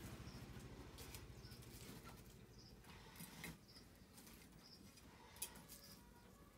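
Near silence: a low rumble fades away over the first few seconds, while a faint short high chirp repeats about once a second, with a few soft clicks.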